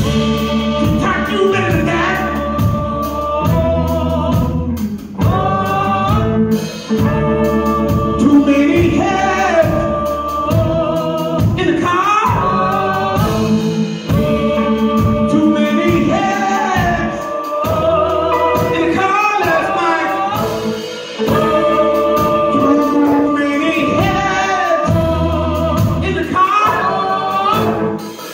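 Live band performance: several men and women singing together in a choir-like group vocal over a band with drums, bass and guitar.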